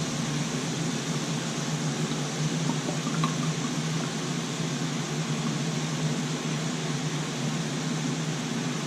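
Vegetables and sauce frying in oil and butter in a pan, a steady even sizzle, over a steady low hum.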